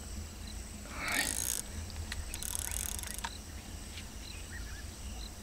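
Spinning reel ratcheting in two short bursts, about a second in and again around two and a half seconds in, as a hooked carp is played on the rod.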